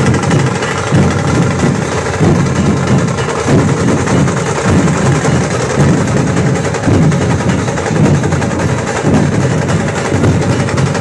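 Loud live dance music dominated by heavy, muddy drum beats that pulse about once a second.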